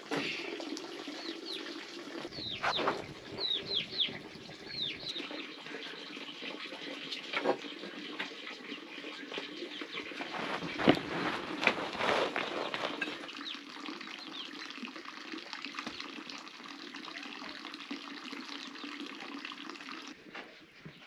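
Steady hiss of rain falling outside, with a few short, high, falling bird chirps in the first five seconds and scattered sharp clicks and knocks, the loudest about eleven seconds in.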